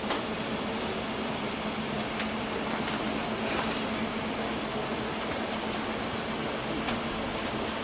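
Steady whoosh and low hum of running ventilation fans, with a few faint clicks.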